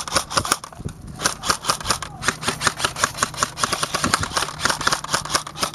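Airsoft gun firing a rapid string of sharp shots, several a second without a break.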